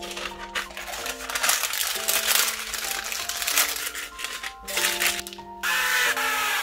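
Light piano music over a stretch of busy rustling and scraping from food being mixed in a glass bowl. About five and a half seconds in, a cooking-oil spray starts: a steady, loud hiss with a faint whistle as oil is sprayed onto the waffle maker plates.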